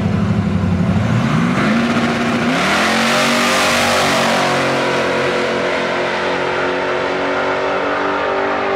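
Chevrolet Silverado pickup launching hard off a drag strip start line. Its engine rumbles low at the line, revs sharply about a second and a half in, and peaks loudest as it passes close. It then holds a steady high-rpm pull down the track.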